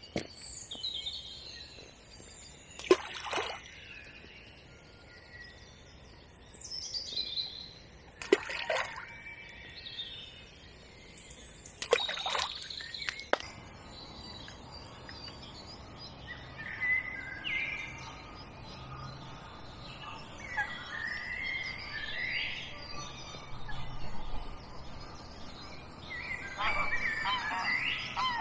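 Spring dawn chorus of songbirds calling and singing. Three short, sharp sounds stand out about 3, 8 and 12 seconds in, and geese start honking near the end.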